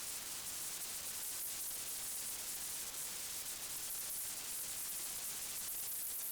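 Steady high-pitched hiss with no gunshots or other distinct events.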